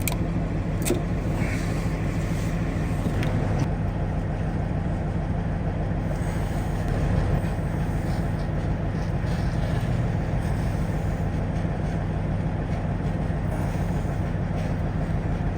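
Kenworth W900 semi truck's diesel engine idling steadily, with a few light clicks and taps in the first few seconds.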